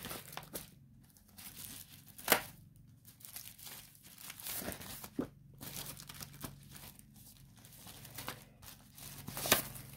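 Instruction papers and their packaging being handled, giving irregular rustling and crinkling, with a sharp crackle about two seconds in and another near the end.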